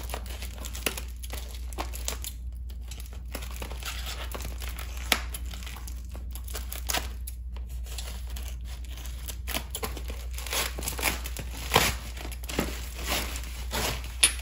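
Plastic packing wrap crinkling and tearing as a wrapped crystal tower is unwrapped by hand, in irregular crackles that grow busier and sharper near the end.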